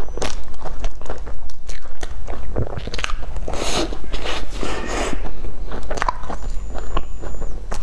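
Close-miked eating sounds: biting into and chewing a soft cream-filled pastry with a crumbly topping, with soft crunches and mouth clicks.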